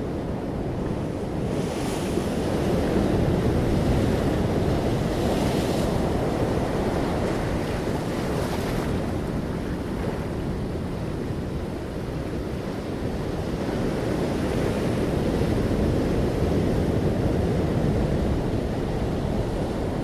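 Ocean surf: waves breaking and washing ashore in a continuous rush that swells and ebbs, with a few hissing surges of spray in the first half.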